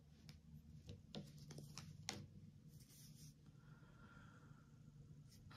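Near silence: faint room hum with a few soft clicks, the clearest about two seconds in.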